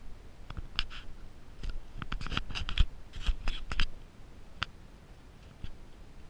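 Handling noise of a handheld camera carried on a walk: a cluster of short scratches, clicks and knocks, thickest in the middle seconds, over a low rumble, with faint voices mixed in.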